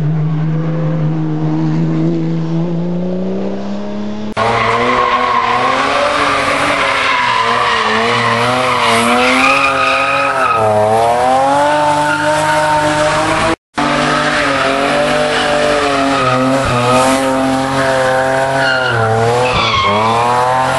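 Hill-climb racing cars at full throttle on a wet road, engines revving up and dropping back through the gear changes, with tyres spinning and squealing. The sound cuts abruptly about four seconds in and drops out for a moment about two-thirds through.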